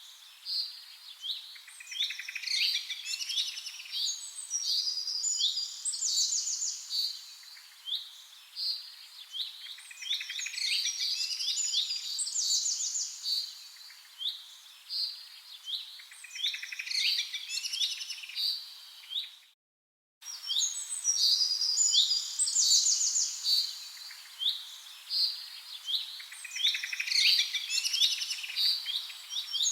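Several small birds chirping and singing together: dense, quick high chirps and trills overlapping without pause. The sound drops out completely for under a second about two-thirds of the way through, then resumes.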